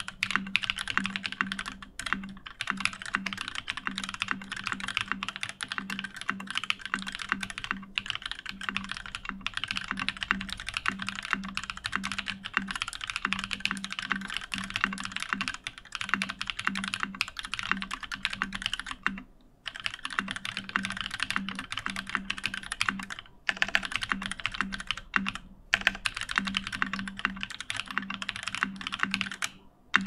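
Steady, fast typing on a UTD 360C mechanical keyboard: lubed linear switches (Kailh Red stems in Gateron KS-3 housings), aluminum plate, O-ring gasket mount and PBT keycaps. The keystrokes are dense and continuous, with a few brief pauses in the last third.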